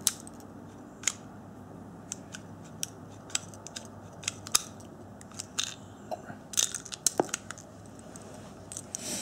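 Irregular metallic clicks and clacks of a P-64 pistol being handled to clear it after a failure to go to battery, with the magazine dropped out and the slide worked to remove the unfired round.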